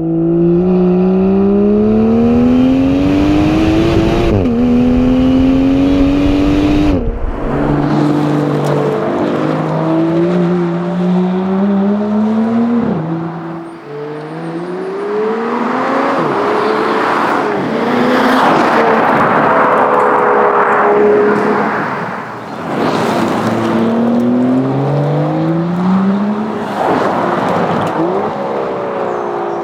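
Aston Martin DB11 engine and exhaust under hard acceleration, the note climbing in pitch and dropping sharply at each upshift, over several separate runs.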